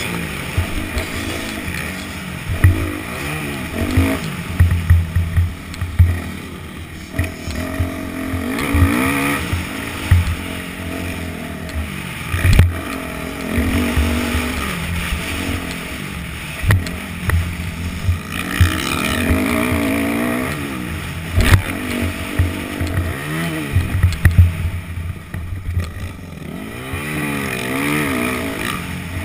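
Yamaha YZ250F four-stroke single-cylinder dirt bike engine heard through a helmet camera, revving up and down over and over as it is ridden round a motocross track, with low thumps and rumble on the microphone.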